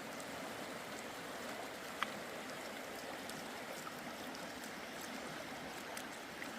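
Mountain creek rushing over a rocky bed, a steady even rush of water, with one sharp click about two seconds in.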